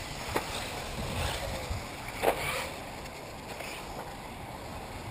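Outdoor noise with wind rumbling on the microphone and a few sharp clicks, the loudest a little over two seconds in.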